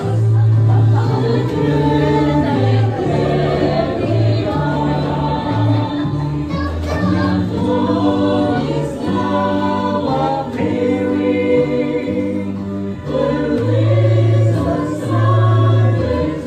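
A group of voices singing together over musical accompaniment, with a bass line that moves from note to note about once a second.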